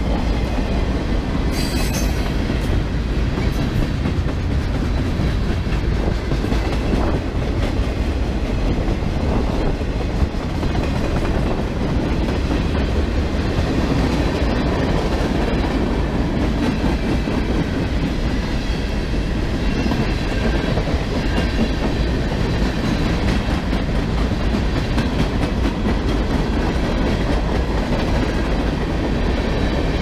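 Freight cars of a mixed freight train rolling past close by: a steady loud rumble of steel wheels on the rails, with a constant clatter of wheels over the rail joints.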